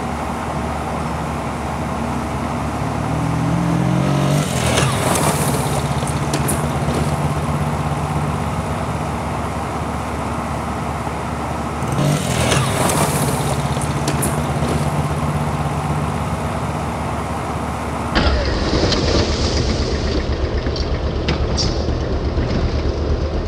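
A small-engine vehicle revving, its engine note rising and then holding steady as it passes close by with a rush of sound; the same pass is heard again about twelve seconds in. From a little before the end, a lower, steadier engine runs.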